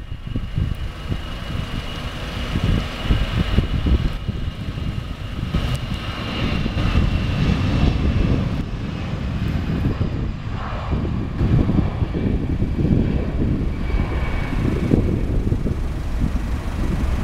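Airbus A320-214's twin CFM56 turbofan engines at takeoff thrust during the takeoff roll and climb-out: a steady jet rumble with a thin high whine over it in the first half.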